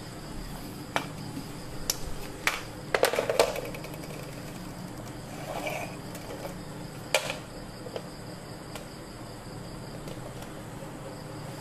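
Several light clicks and knocks of a marker and a long plastic ruler being handled against a whiteboard, with a quick rattle of knocks about three seconds in, over a steady low hum.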